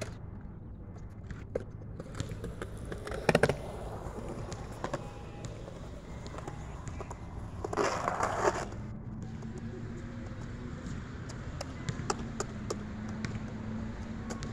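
Skateboard riding on wet concrete: a steady rolling rumble, a cluster of sharp clacks about three seconds in, and a short, louder scraping rush around eight seconds in.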